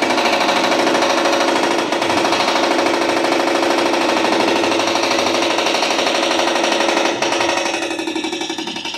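Hydraulic breaker on a JCB backhoe loader hammering into a house wall: a rapid, steady stream of blows over the machine's engine. About seven seconds in the hammering eases and turns more uneven.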